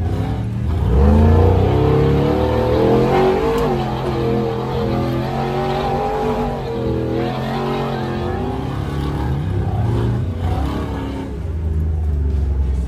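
Off-road vehicle engine revving hard on sand dunes, heard from inside the open cab, its pitch rising and falling again and again as the throttle is worked.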